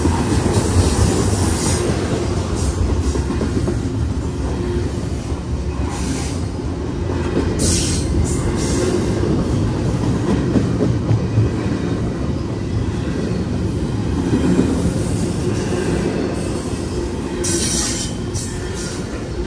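CSX freight train's cars rolling past on the rails, a steady loud rumble of wheels on track. A sharper high screech of wheels comes about eight seconds in and again near the end.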